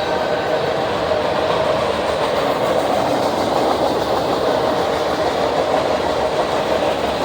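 A Norfolk Southern freight train rolling past on the rails, a steady, unbroken noise of wheels and cars on the track.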